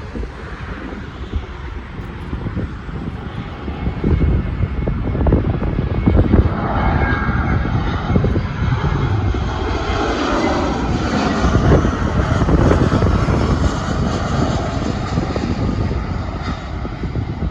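Airbus A319 twin-engine jet coming in to land, passing close by: its jet engine rush and rumble swells about four seconds in and stays loud, easing a little near the end.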